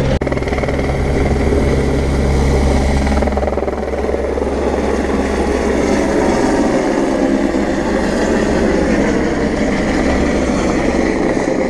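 A helicopter flying past, its rotor and engine making a steady, loud noise with a heavy low rumble.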